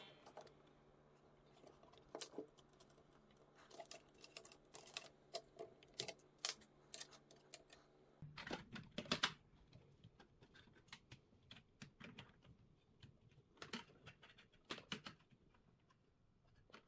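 Faint, irregular clicks and taps of small plastic and metal parts being handled and fitted on a 3D-printed model car chassis. A faint low hum runs underneath and stops about halfway through.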